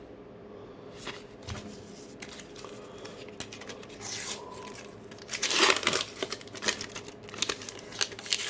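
Paper sticker-pack wrapper being torn open and crinkled by hand, in a run of crackles with the loudest tear a little past halfway.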